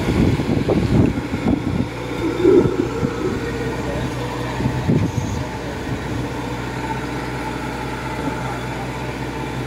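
Diesel engine of a Kubota DC-105X crawler combine harvester running steadily as the machine travels on its tracks. Irregular clunks and knocks come in the first five seconds, the loudest about two and a half seconds in, then it settles to an even running sound.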